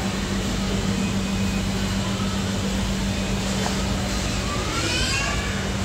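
Steady mechanical hum of supermarket refrigerated display cases and air conditioning, with a brief rising squeak about five seconds in.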